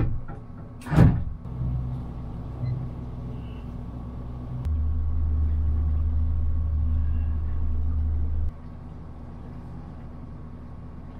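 Small boat's engine running with a low, steady rumble; a sharp thump about a second in. Midway the rumble grows louder for a few seconds, then drops back abruptly.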